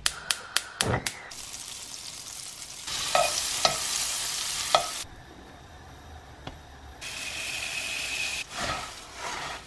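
Marshmallows sizzling in fat in a non-stick frying pan on a gas hob, after a few sharp clicks at the start. Near the end, Rice Krispies are poured into the pan, followed by a few knocks.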